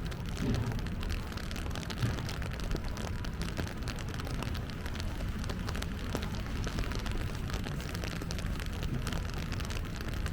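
Rain falling steadily, with many close, sharp raindrop ticks over a low steady rumble.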